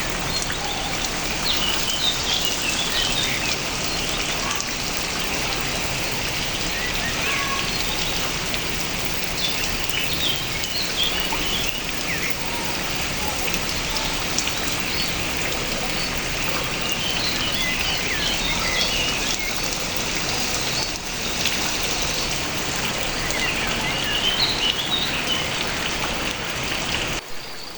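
Steady rain pattering down, with small birds chirping in short bursts over it several times. The rain cuts off abruptly just before the end.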